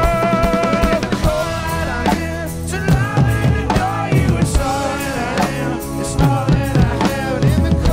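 Live band music: a singer holds one long note that ends about a second in, then sings a wavering melodic line over a drum kit and percussion.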